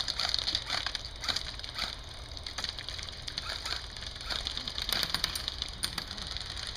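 Scattered airsoft gunfire during a night game: sharp single clicks and cracks of electric airsoft guns firing and BBs striking the wooden and plastic barriers, irregular, a few a second, over a steady high-pitched chirr.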